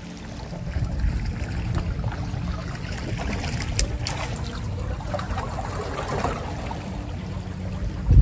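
Seawater lapping and splashing against shoreline rocks over a steady low rumble, with a few sharp clicks about three to four seconds in.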